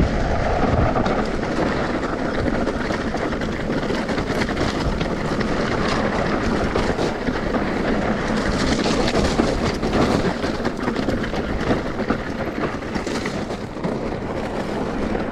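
A vehicle on the move: a steady engine drone with wind rushing over the microphone, dipping briefly near the end.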